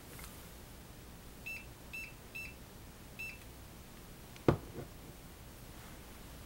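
Four short, high-pitched electronic beeps from a handheld RF electrosmog meter, the first three about half a second apart and the fourth after a slightly longer gap. A single sharp knock follows a little over a second later.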